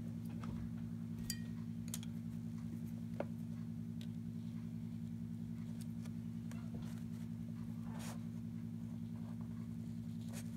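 A steady low electrical hum of several even tones, with a few faint ticks scattered through it. Near the end a brief rasp as a watercolour brush touches the paper.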